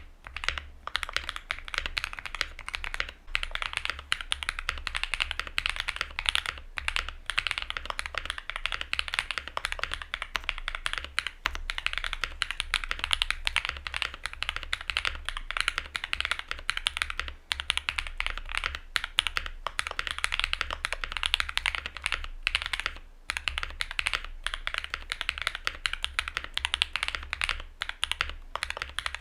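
Fast, continuous typing on a Luminkey65 custom mechanical keyboard with an FR4 plate and lubed, filmed switches: a dense stream of bright clacks with a few brief pauses, over a steady low hum.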